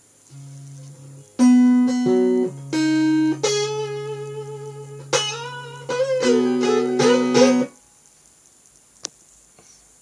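Guitar played alone: a short run of plucked notes and chords, one note wavering in pitch midway, stopping abruptly about three-quarters through. A single sharp click follows about a second later.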